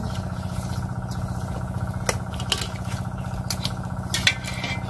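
A small engine running steadily with a rapid, even pulse, and a few sharp clicks over it, the loudest about four seconds in.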